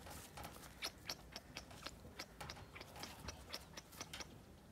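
German shepherd puppies' paws and claws scuffing on dry dirt and straw: faint, irregular clicks and scratches, several a second.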